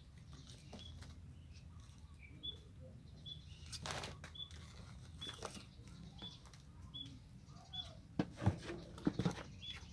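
Five-week-old kittens scrabbling and wrestling on a woven plastic sack and cardboard: scratchy rustles and light bumps, louder and busier near the end. A short high chirp repeats every second or so.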